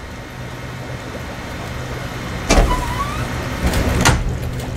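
Anime sound effects: a steady low electrical hum of computer machinery, broken about halfway by a sudden thud with a short wavering electronic tone, then two sharp clicks near the end.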